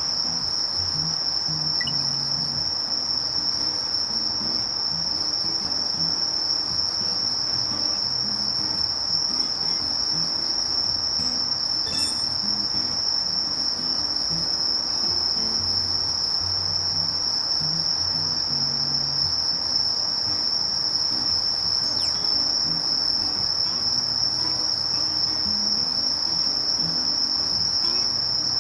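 Sasakiri katydid (Conocephalus melaenus) singing a steady, unbroken high-pitched buzzing trill, the species' 'shiri-shiri-shiri' song.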